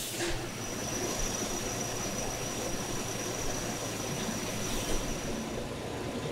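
Steady machine running noise with a thin, high steady whine that stops near the end.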